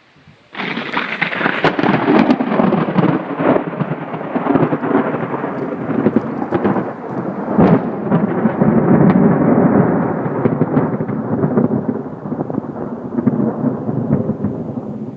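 A close thunderclap: a sudden loud crack about half a second in, then rumbling and crackling thunder that rolls on for more than ten seconds and eases toward the end.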